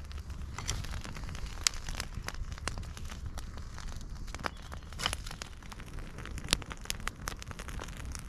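Small campfire of foraged twigs and sticks burning, crackling with irregular sharp pops and snaps; the loudest pops come a little under two seconds in and about six and a half seconds in.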